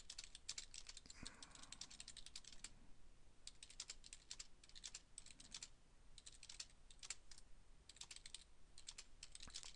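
Faint typing on a computer keyboard: quick runs of keystrokes with short pauses between them.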